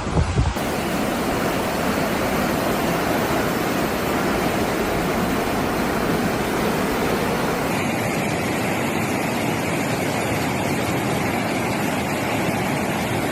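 Steady rushing of floodwater, a continuous even roar of moving water. The sound changes abruptly twice, about half a second in and about eight seconds in, as the footage cuts between clips.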